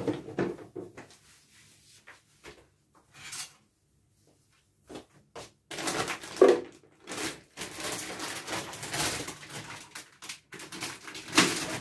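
A plastic bag crinkling and rustling as it is handled, loudest just after the start of the rustling and again near the end. It comes after a few light clicks and knocks in the first second and a short lull.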